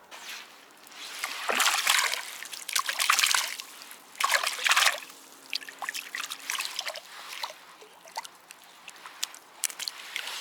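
Water splashing in three loud bursts in the first five seconds, then scattered small splashes and drips.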